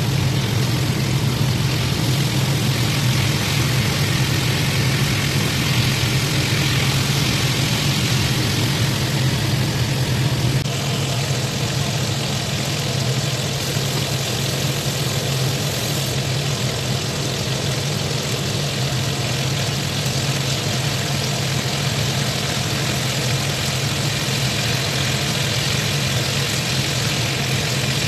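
Floured fish pieces sizzling steadily as they deep-fry in a pan of hot oil, over a steady low hum.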